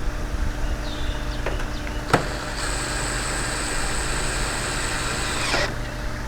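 A sharp click, then a small electric motor whining steadily at a high pitch for about three seconds before winding down in pitch and stopping.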